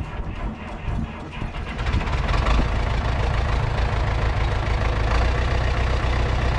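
Diesel engine of a John Deere 455E crawler loader running steadily, getting louder about two seconds in as it comes under more throttle or load.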